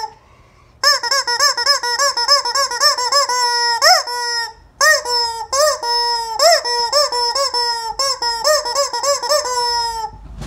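Rubber squeaking chicken toy squeezed over and over, giving quick pitched squeaks that each rise and fall. They come in two long runs with a brief pause a little before halfway, and one longer rising squeal just before that pause.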